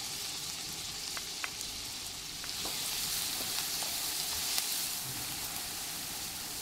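Diced onions sizzling in hot olive oil and butter in a stainless steel pot while being stirred with a wooden spoon: a steady frying hiss, a little louder in the middle, with a few faint ticks.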